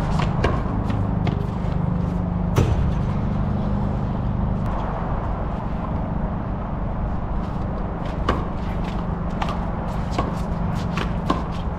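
Handball rally: sharp slaps and knocks of a small rubber handball struck by gloved hands and hitting the concrete walls, scattered irregularly, the loudest about two and a half seconds in. A steady low rumble runs underneath.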